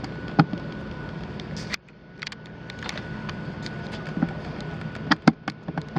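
Sharp metallic clicks as a 10 mm Kobalt Xtractor hex bit socket is fitted onto a rounded-off, damaged fastener head, with two louder clicks close together about five seconds in. Steady background noise with a faint steady whine runs underneath.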